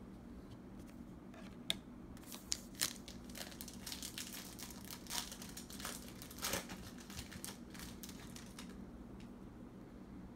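Wrapper of a baseball card pack being torn open and crinkled in the hands: a few sharp snaps about two seconds in, then irregular crackling that dies away about a second before the end.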